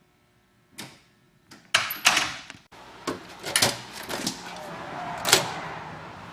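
A commercial door being worked: a string of sharp latch clicks and hardware knocks, the loudest near the middle and one more near the end. About three seconds in, a steady rushing outdoor background with road noise sets in behind them.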